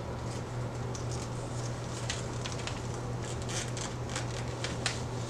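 Sphagnum moss rustling and crackling in short irregular ticks as hands press and work it while line is wrapped and tied around an orchid mount, over a steady low hum.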